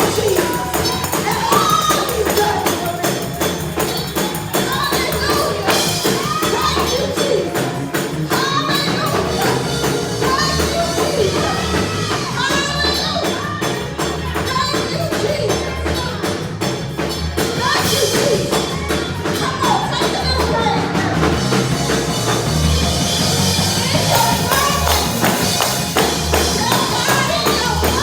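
Up-tempo gospel praise-break music with a tambourine shaking throughout, and voices singing and shouting over it.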